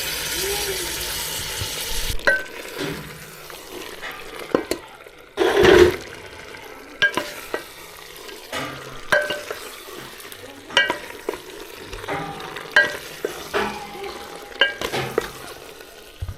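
Food frying with a sizzle in a cooking pot while a spoon stirs it, clinking against the pot about once a second. There is one loud rush of noise lasting about half a second, some five and a half seconds in.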